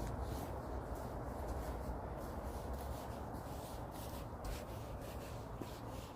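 Steady rubbing and rustling noise close to the microphone, with a low rumble and a few faint clicks.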